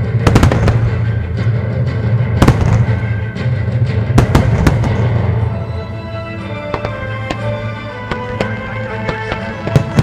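Aerial firework shells bursting in sharp bangs over a music soundtrack with a steady deep bass. A handful of loud reports come in the first half; after about six seconds the bass eases and a quicker run of smaller bangs follows.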